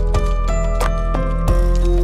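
Instrumental background music: held notes over a steady bass, with new notes struck a few times a second.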